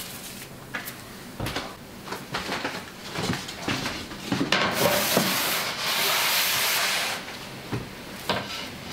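Light knocks and taps of bench work, then about two and a half seconds of loud, rough rubbing in the middle as a wooden board is worked against the steel bench, with a few more knocks near the end.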